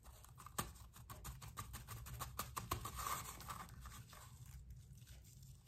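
Faint crackling and scratching of a hand-rolled paper funnel being squeezed and worked by the fingers as artificial snow is fed through it: a run of quick sharp ticks that dies down after about four seconds.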